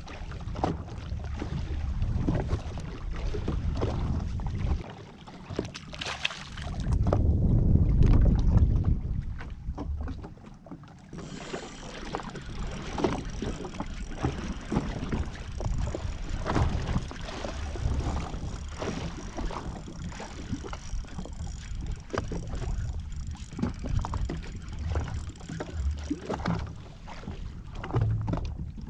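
Sea water lapping and slapping against the hull of a drifting jet ski, with wind buffeting the microphone. The wind is heaviest about seven to nine seconds in.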